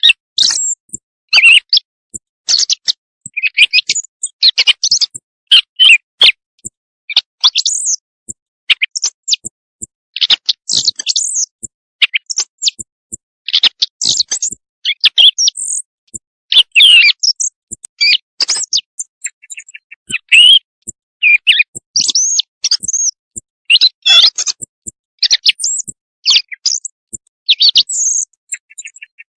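Quail calls played as a night-time hunting lure: a dense, irregular run of short, high chirps and quick sweeping whistles, several a second with brief pauses.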